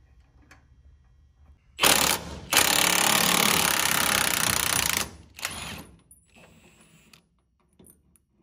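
Cordless Milwaukee impact wrench hammering on a bolt at the truck's hood pivot. A short burst about two seconds in is followed by a steady run of about two and a half seconds, then one brief blip, as the pivot-pin hardware is taken out.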